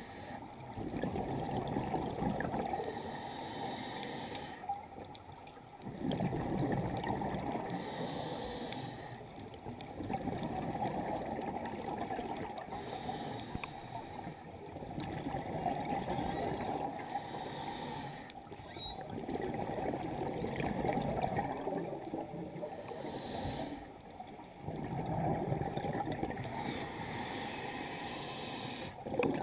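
Scuba breathing underwater: bubbling exhalations through a regulator in bursts about every four to five seconds, with quieter pauses between breaths.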